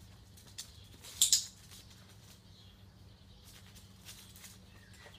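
A sharp, high double click about a second in, over the faint patter of a puppy's paws moving on concrete.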